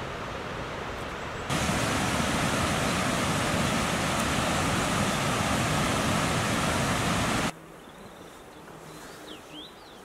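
Rushing water of a mountain waterfall, a steady hiss that jumps louder about a second and a half in and cuts off abruptly about seven and a half seconds in. After that comes a much quieter outdoor background with a few short high chirps near the end.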